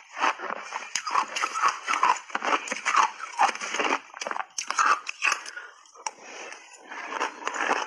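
Close-miked crunching and chewing of big bites of matcha-powdered shaved ice, a dense run of sharp crackles, with a metal spoon scraping and scooping through the ice in the bowl.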